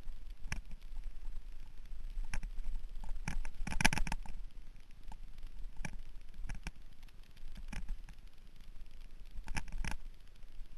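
Mountain bike rattling over a rough dirt singletrack descent, picked up through a handlebar-mounted camera: scattered sharp knocks and clatters, with a dense burst about four seconds in and another near the end, over a steady low rumble.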